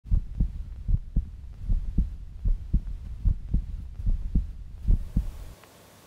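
Heartbeat sound effect: deep paired lub-dub thumps over a low hum, about 75 beats a minute, cutting off suddenly about five and a half seconds in.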